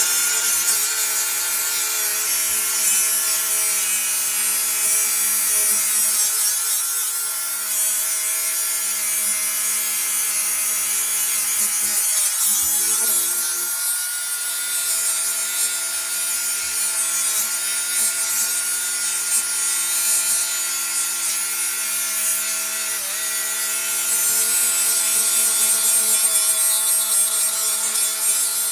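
Power grinder running continuously while it grinds down a steel brake caliper bracket, with a steady whine and a hiss from the wheel on the metal. The motor sags in pitch twice, briefly, where the wheel bites harder.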